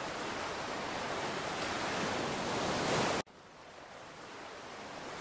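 Steady wash of surf and wind at a beach, slowly swelling, that breaks off abruptly a little past three seconds in and comes back quieter.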